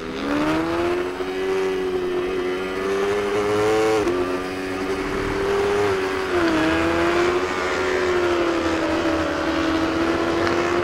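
Engine of a 300-class supersport race motorcycle heard from its onboard camera at racing speed. The engine pitch climbs, drops sharply about four seconds in, climbs again and drops once more after six seconds.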